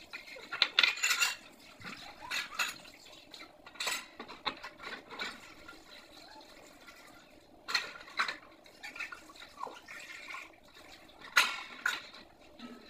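Dishes being hand-washed under a running tap: irregular clinks and knocks of plates, bowls and a metal grater against each other and the sink, over running water.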